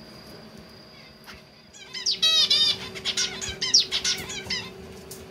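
Zebra finch vocalizing: a rapid string of chirping notes that starts about two seconds in and lasts nearly three seconds.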